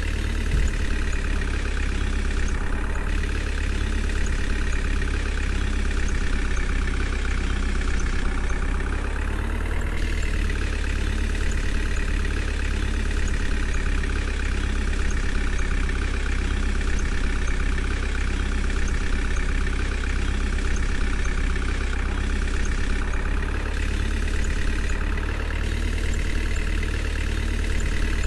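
A heavy vehicle's engine idling steadily, its pitch rising briefly about ten seconds in.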